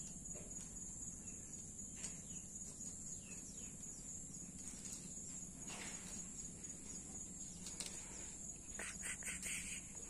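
A steady high-pitched insect drone, like crickets, with a few faint clicks and knocks of small plastic toy vehicles being moved on a wooden bench.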